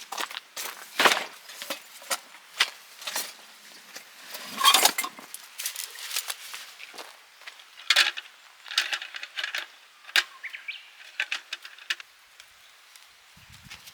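Camping gear being handled by hand: irregular clinks, clicks and knocks with rustling, one longer louder rustle about five seconds in, growing sparser near the end.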